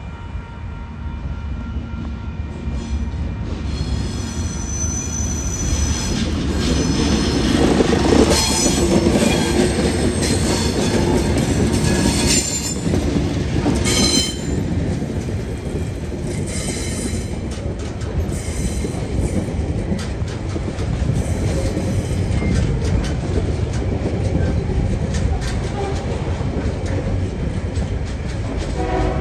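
Freight train hauled by TasRail TR-class diesel locomotives TR13 and TR06 passing close by. The locomotive noise builds to its loudest about eight seconds in as they go past, then container wagons roll by with wheel clatter and squeal. A steady high ringing tone is heard over the approach in the first few seconds.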